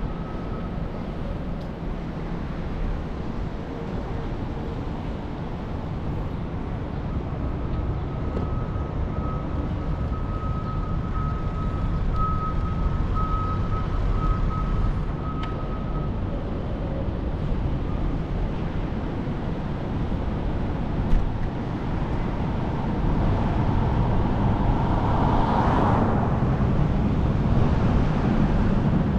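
Wind rumble on a cycling camera's microphone over city traffic noise while riding. A thin steady high whine runs through the middle, and the traffic sound swells briefly near the end.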